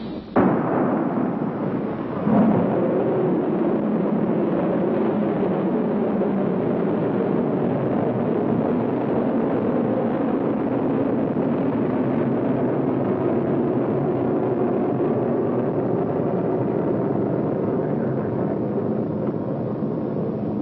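Polaris missile's solid-fuel rocket motor firing at launch: a sudden loud blast about a third of a second in, a second surge about two seconds in, then a steady rushing noise.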